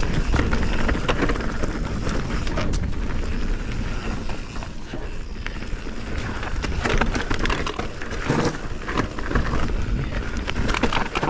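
Canyon Spectral 29 full-suspension mountain bike descending rough dirt singletrack: tyres rolling over dirt and roots, with frequent short clicks and rattles from the bike, over a constant low rumble on the microphone.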